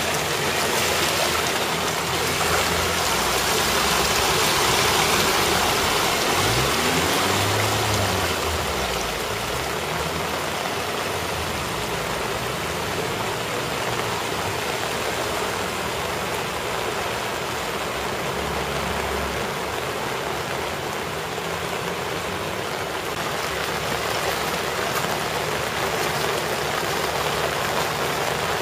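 Steady hiss of heavy rain and flowing floodwater, with a car driving slowly through the flooded road, its tyres sloshing and its engine heard as it passes during the first eight seconds or so.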